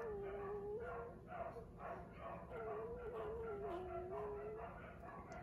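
One-week-old puppy whining: a thin, wavering cry held for a second or more, breaking off about a second in and starting again a little later for another long stretch.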